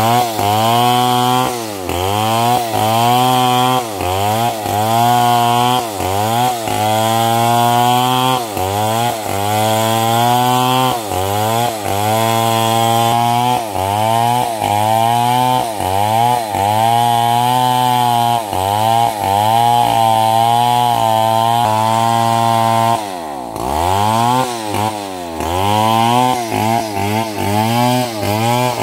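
Stihl MS 070 two-stroke chainsaw ripping a log lengthwise, running at high revs, with its pitch sagging and recovering about once a second as the chain bites under load. About three quarters of the way through, the engine drops briefly towards idle and then revs back up into the cut.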